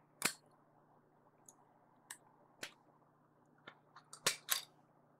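Small sharp plastic clicks and snaps, about nine spaced irregularly, as the casing of a Nikon Coolpix AW110 compact camera is prised apart by hand. The loudest come one near the start and a close pair near the end.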